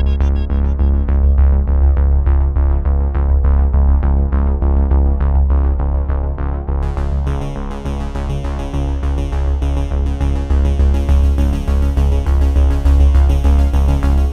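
Background electronic music: synthesizer over a steady drum-machine beat, with a brighter high layer coming in about halfway through.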